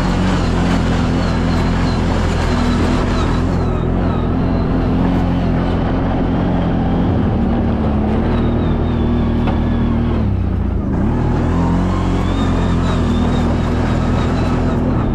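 CFMoto CF 1000's V-twin engine running steadily under way on a trail. The engine note drops briefly about ten seconds in, then picks back up.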